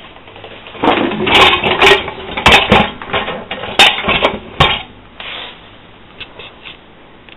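Zanussi DA 4341 dishwasher's loaded lower rack being moved in and out, the wire rack, plates and pans rattling and clinking with many sharp knocks for about four seconds, then a few lighter knocks.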